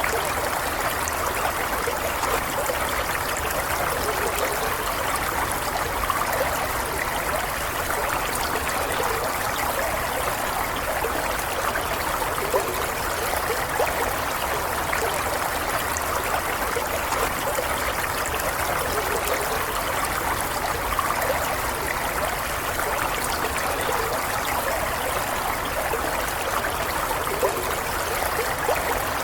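Stream water running and gurgling steadily, with no break or change.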